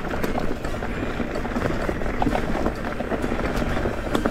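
A Rocky Mountain Instinct full-suspension mountain bike rolling over a rocky, leaf-covered trail: continuous tyre crunch with many small irregular knocks and rattles from the bike over the stones, and wind noise on the camera microphone.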